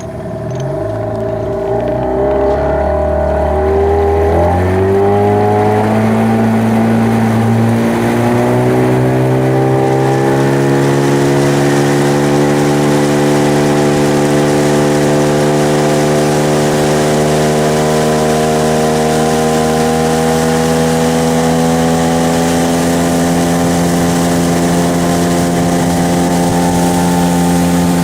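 Boat outboard motor speeding up, its pitch climbing over the first several seconds, then running steadily at speed.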